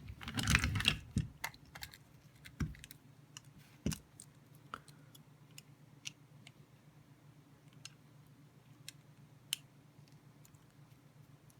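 Light clicks and clatter of an OTF knife and its parts being handled: a dense run of rattling clicks in the first second, a few sharper clicks over the next few seconds, then scattered single ticks over a faint steady hum.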